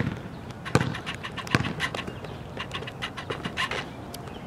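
A basketball dribbled on asphalt: three slow bounces about three-quarters of a second apart, then a quick run of lighter taps and scuffs.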